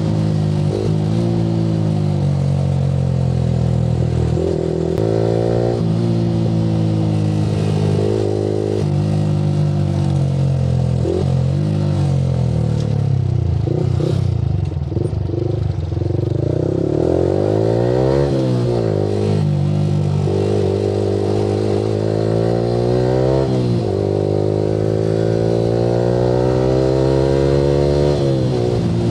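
Yamaha R15 V3's 155 cc single-cylinder engine through an Akrapovic R9 aftermarket exhaust, pulling through the gears. The revs climb and drop back at each upshift. Around the middle the revs fall as the bike slows, then it accelerates hard again.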